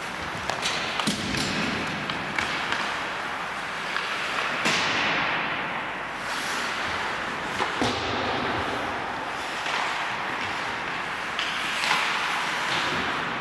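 Ice hockey play in an indoor rink: skate blades scraping and hissing on the ice in swells, with scattered sharp clacks of sticks on the puck and thuds of the puck and players against the boards.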